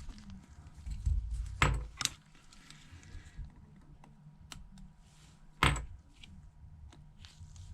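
Small clicks and light taps of a Phillips screwdriver and small phone parts being handled, with two sharper knocks, about two seconds in and again near six seconds.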